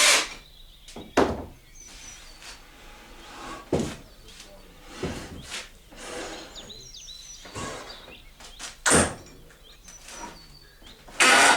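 Irregular knocks and thuds of objects being handled and set down in a workshop, about five separate impacts, the loudest two near the end, with quieter rustling and a few faint high chirps in between.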